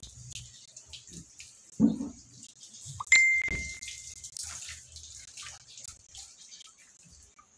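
Water splashing and dripping off a wet toy poodle as it is lifted and rinsed over a plastic basin. A dull bump comes about two seconds in, and a bright ringing chime sounds once a little after three seconds in, fading over about a second.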